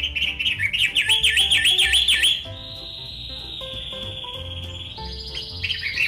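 Cendet matahari singing: a fast run of rising-and-falling whistled notes, then a long steady high whistle from about two seconds in, with chirping notes returning near the end. Soft background music plays underneath.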